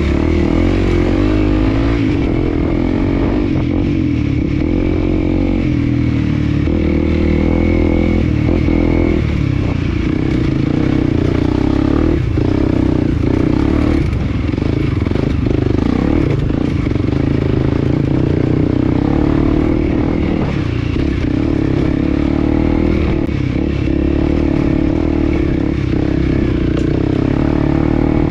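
Small motorcycle engine running steadily on a dirt trail, its pitch shifting a little up and down with the throttle.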